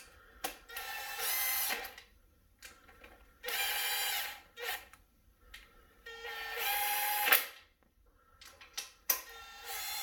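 Power drill running the 10 mm side-cap bolts down into an LQ4 engine block, in four short spins of about a second each, with light clicks between.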